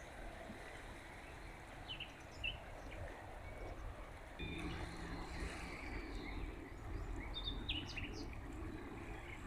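Small birds giving short, high chirps a few times over the steady low rush of river water. A faint low hum comes in about halfway through.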